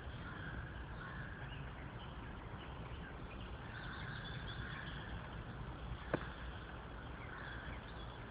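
Woodland ambience: faint, scattered birdsong over a steady low rumble, with one sharp click about six seconds in.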